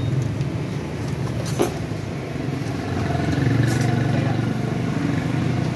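Motor vehicle engine running with a steady low hum in the street traffic, growing a little louder past the middle. A single sharp click comes about one and a half seconds in.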